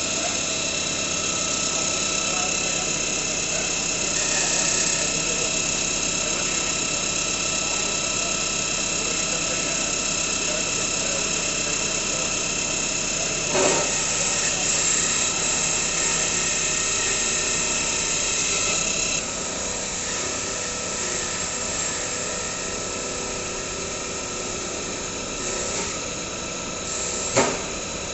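CNC lathe running steadily with a whine of several high-pitched tones. There is a sharp metallic knock about halfway through and another near the end. About two-thirds through, the higher tones drop away and the machine gets a little quieter.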